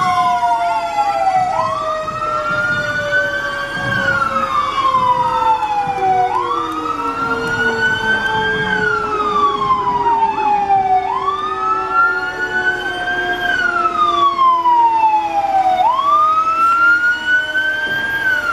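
Fire truck siren wailing loudly, its pitch rising quickly and falling slowly about every five seconds, with a second, lower siren tone sliding steadily down underneath.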